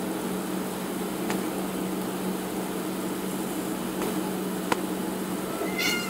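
Steady low room hum with a few faint clicks, the sharpest about three-quarters of the way through. Just before the end comes a brief high-pitched sound with several tones, the loudest thing heard.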